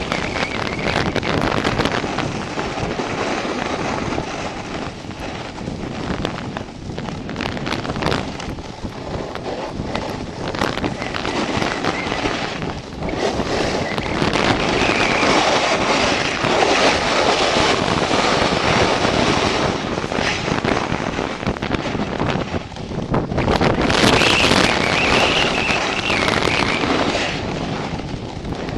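Rushing wind on the microphone of a snowboarder riding downhill, mixed with the board's base and edges hissing and scraping over packed snow. It grows louder and hissier about halfway through and again near the end, as the speed and turns pick up.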